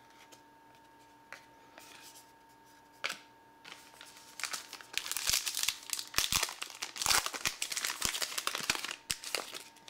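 Foil wrapper of a 2016 Topps WWE Undisputed trading-card pack being crinkled and torn open by hand: a dense run of crackling and ripping from about four seconds in. Before it, a single tap about three seconds in.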